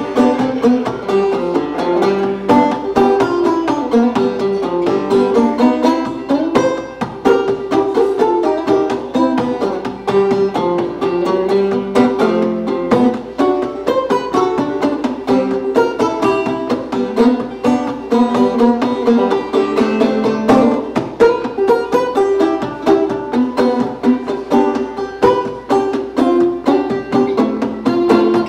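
Banjo played clawhammer style, unaccompanied and without singing: a steady, even run of quick picked melody notes with brushed strums.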